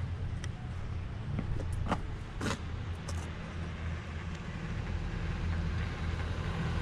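1975 Plymouth Duster with its 225 slant-six engine driving up and approaching, the low engine hum growing louder as it nears. A few short sharp clicks come about two seconds in.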